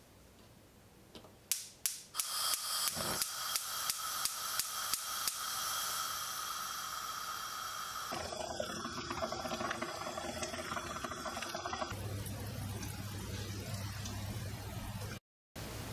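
Whirlpool gas hob burner being lit: the spark igniter clicks about twice a second for a few seconds while gas hisses, then the lit flame hisses steadily. About twelve seconds in, this gives way to water simmering in a steel pot around a submerged can of condensed milk, the slow boil that turns it into dulce de leche; the sound drops out briefly near the end.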